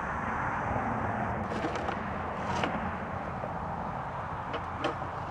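Steady outdoor background noise with a few faint, sharp clicks or taps.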